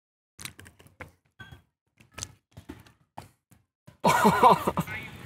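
A few faint scattered clicks and taps, then, about four seconds in, a sudden loud outburst of voices.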